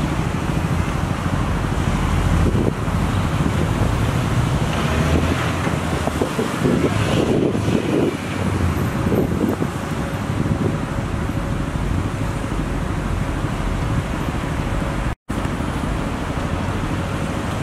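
Road traffic passing close by, with a police motorcycle and police cars going past and wind rumbling on the microphone. The traffic noise is busiest around the middle and cuts out for an instant about three-quarters of the way through.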